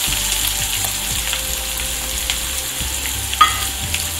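Chopped onions sizzling in hot oil in a kadai, a steady hiss, with one sharp clink about three and a half seconds in.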